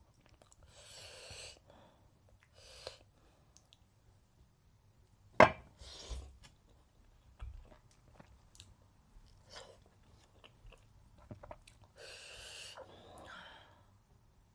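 A person chewing and making mouth sounds while eating a meal of dhindo with vegetables, pickle and salad, in short noisy bursts. A single sharp crunch or click, the loudest sound, comes about five and a half seconds in.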